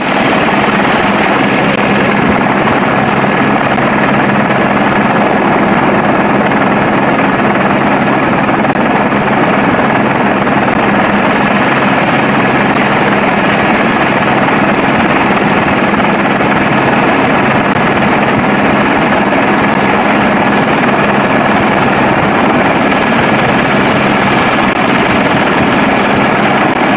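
Helicopter engine and rotor noise heard from aboard the helicopter, loud and unchanging, with a steady low hum and a thin high whine.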